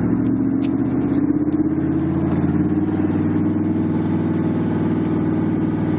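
Chinook tandem-rotor helicopters running loud and steady, with a rapid rotor chop over the turbine drone as they get ready to lift off.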